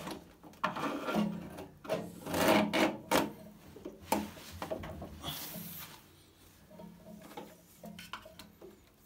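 Irregular scraping and rubbing of washing-machine parts being worked on by hand, with a run of louder rasping strokes a couple of seconds in, then fainter rubbing and small knocks.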